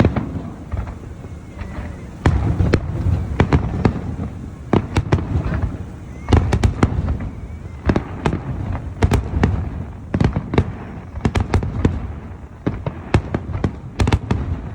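Fireworks display: a rapid, irregular run of sharp bangs and crackles over deep rumbling booms that swell several times.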